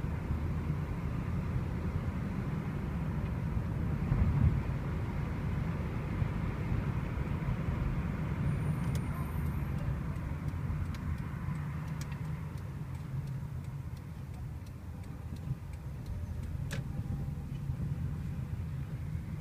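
Steady low rumble of city street traffic, with a scatter of faint clicks in the second half.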